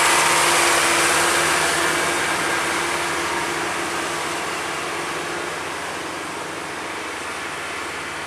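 A light box truck's engine and tyres passing close and then pulling away, its steady engine note fading gradually as it goes.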